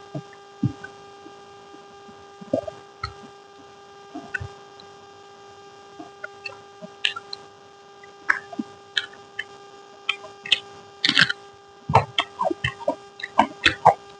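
Close-up eating sounds: scattered mouth smacks and chewing clicks, growing denser and louder in the second half, over a steady electrical hum.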